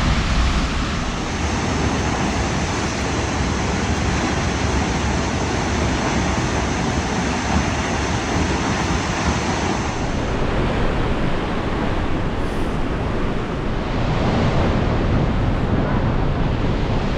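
Steady rushing roar of Vernal Fall, a large waterfall at spring peak flow, with water pounding down continuously.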